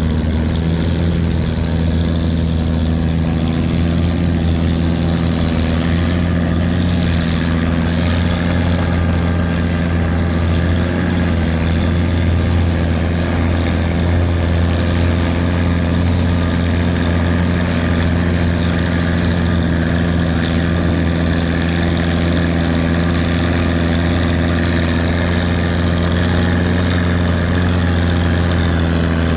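Antique tractor engine running loud and steady, holding one constant engine speed with no revving.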